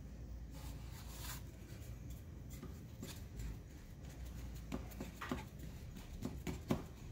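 Hands pressing a rolled, filled bread dough down into an aluminium loaf pan: soft rubbing and patting of the dough, then several light knocks from the metal pan on the stone counter in the second half, the loudest near the end.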